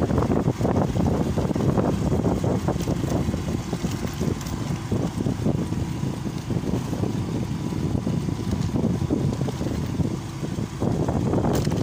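Wind buffeting the microphone of a camera on a moving motorcycle, with the engine running under it. It eases briefly near the end, then picks up again.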